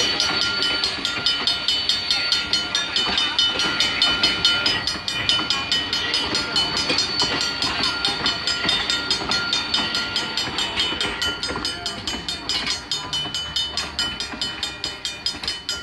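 Railroad crossing bell ringing in rapid, even strikes as a passing train's cars roll over the crossing, with the wheels clattering on the rails. The whole grows quieter toward the end.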